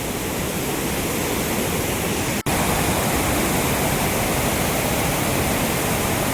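Floodwater rushing out through the fully opened gates of a dam under high pressure: a loud, steady rush of water. The sound cuts out for an instant about two and a half seconds in.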